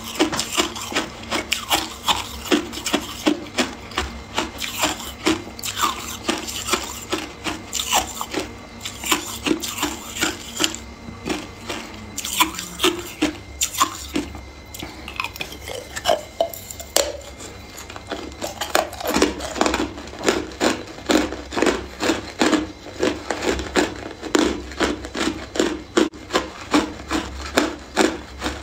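Chunks of hard ice being bitten and chewed, a quick run of sharp crunches, a few every second. They thin out about halfway through and come thick again in the last third.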